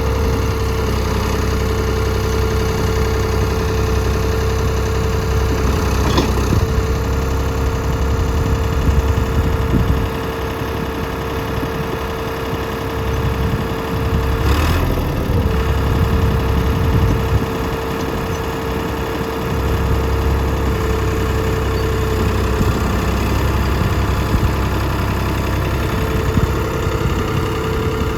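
Ford 555B backhoe's diesel engine running steadily, with a constant whine above the engine note. The whine wavers briefly about six seconds in and again about halfway through.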